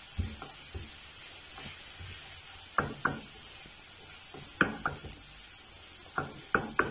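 Shredded vegetables sizzling steadily as they sauté in a non-stick frying pan, stirred with a silicone spatula. The spatula scrapes and knocks against the pan in short pairs of strokes several times.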